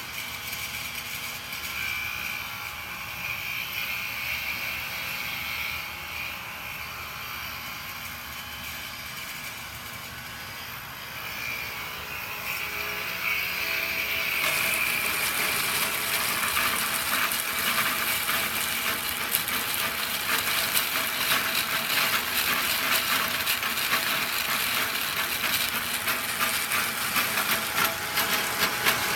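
Ceiling grinder running with a steady high whine. About halfway through it gets louder and turns into a harsh, gritty grinding noise.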